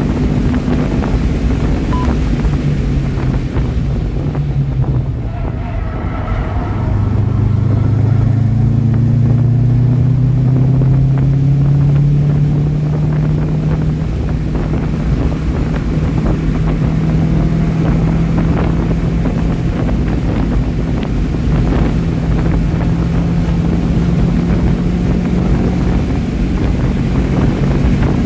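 2012 Subaru STI's turbocharged flat-four engine pulling hard at racing speed, heard from inside the cabin over heavy wind and road noise. About four to six seconds in, the engine note drops as the car slows for a corner. It then climbs steadily as the car accelerates and holds high, rising slowly.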